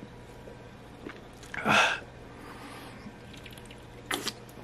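A person gulping a drink from a can: one loud swallow about two seconds in and a brief, sharper sound a little after four seconds.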